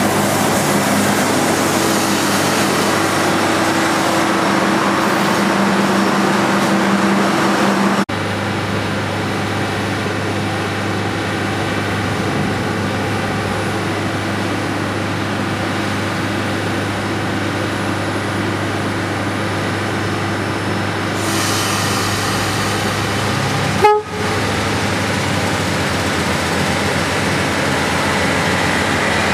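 ADL/ADC diesel multiple unit's diesel engines running, a steady drone with a low engine hum. The sound breaks off abruptly twice, the second time with a short click.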